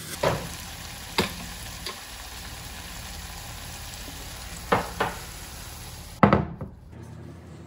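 Food sizzling in hot oil in a pan, with a utensil knocking against the pan several times as it is stirred. The loudest knock comes near the end, and the sizzling then stops.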